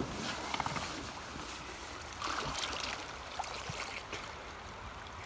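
Running river water with a couple of brief splashes, about half a second in and again about two and a half seconds in.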